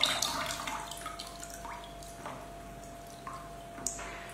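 Water splashing, then dripping and trickling back into a plastic basin as a bundle of soaked glass noodles is lifted out. There is a splash at the start, then scattered single drops.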